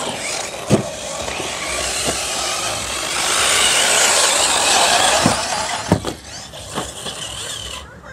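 Brushless electric 1:8 RC buggies running on a dirt track: a high motor whine and tyre noise that swells and fades as they pass, with several sharp knocks. The whine cuts off abruptly just before the end.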